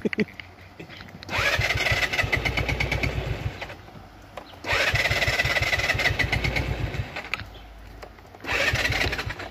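Motor scooter's electric starter cranking the engine in three tries of two to three seconds each, with short pauses between, and the engine not catching: the scooter has stalled.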